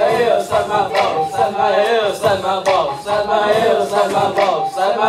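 Several boys' voices singing a chant together into microphones, the pitch bending up and down in short phrases.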